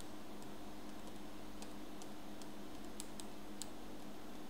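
A few faint computer keyboard keystrokes, scattered clicks mostly in the second half, over a steady low hum.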